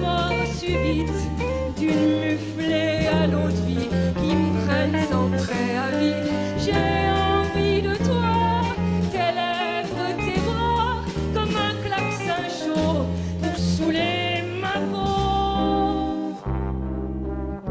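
A woman singing a chanson with wavering held notes into a microphone, over a live band with bass and brass. About sixteen seconds in, the high sizzle of the accompaniment stops and the brass carries on.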